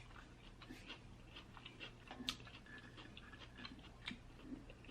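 Light, faint ticking of fingers tapping the top of a can of sparkling water before it is opened, a series of small taps with one sharper click about two seconds in.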